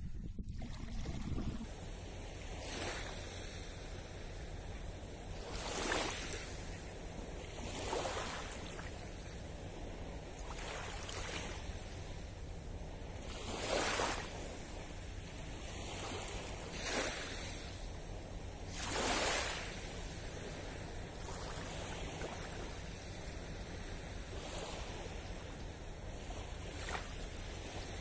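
Small waves lapping at the shore of a calm sea: a soft wash, swelling into a gentle splash every two to three seconds.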